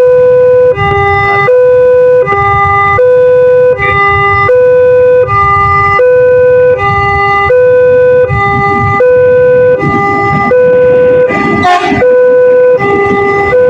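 Railway level-crossing warning siren of the Multec type, sounding a two-tone hi-lo alternation, each tone held about three quarters of a second. A brief noisy burst cuts in near the end.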